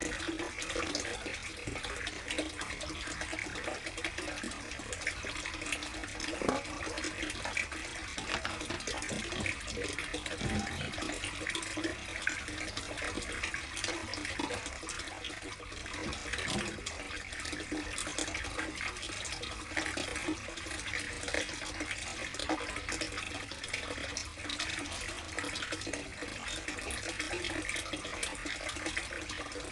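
Water in an 800-litre plastic koi tub splashing and trickling steadily, with many small splashes.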